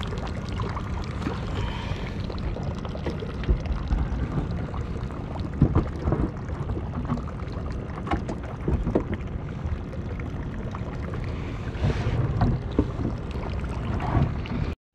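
Steady wind and choppy water against a small boat's hull, with a few scattered knocks.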